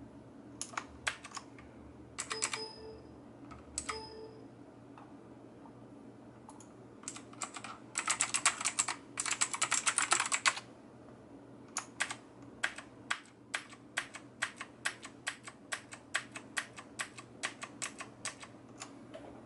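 Key presses on a Nox NX-K1 mechanical keyboard: a few clicks early on, two of them with a brief ringing tone, then a burst of fast typing about eight seconds in, then single key presses about two a second near the end, with Fn held to cycle the LED lighting modes.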